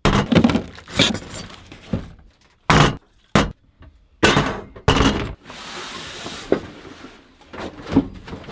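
Camp cookware and a portable butane stove's hard plastic case being handled and set down on a folding table: a string of separate clanks, knocks and thunks, with a short scraping rush about six seconds in and a last thump near the end.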